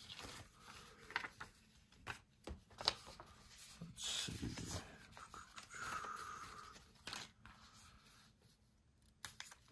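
Paper and cardstock pieces being handled and moved about on a work surface: light rustling with scattered small taps and clicks, and a short louder rustle about four seconds in.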